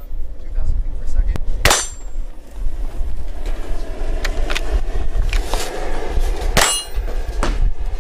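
A single shot from an Armscor Rock Island bolt-action rifle in .22 TCM just under two seconds in, then several sharp metallic clicks as the rifle's action is handled, and another gunshot about two-thirds of the way through. Wind rumbles on the microphone throughout.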